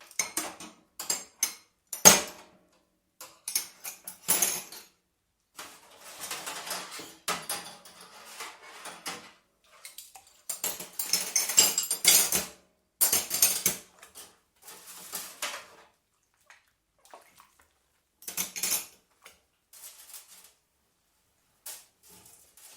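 Washing up by hand: dishes and cutlery clattering and clinking in a sink among splashes of water, in irregular bursts with short pauses, sparser near the end.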